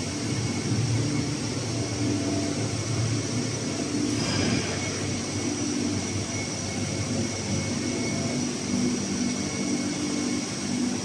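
Steady hum of running industrial machinery and control-cabinet cooling fans, with a low drone and a thin high whine held throughout. A short burst of hiss comes about four seconds in.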